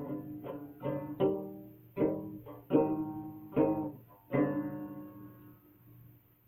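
A plucked string instrument plays the closing phrase of a song as single, slow notes. The last note, about four seconds in, is left to ring and fade out.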